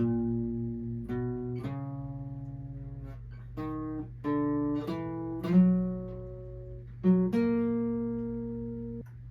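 A guitar played as single plucked notes in a slow melodic line, each note ringing and fading before the next, over a steady low hum. The notes stop about nine seconds in.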